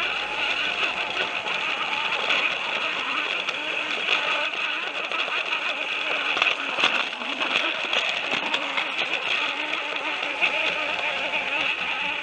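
Plarail toy train's small battery motor whirring steadily while its wheels rattle along plastic track, heard from a camera riding on the train.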